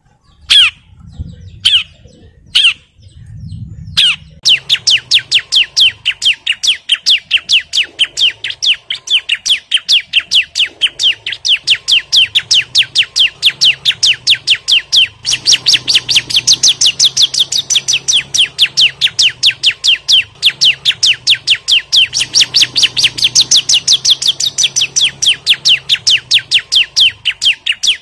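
Ciblek (a prinia) calling hard. A few separate sharp chirps come first, then from about four seconds in it breaks into a fast, unbroken run of sharp repeated chirps, about four a second.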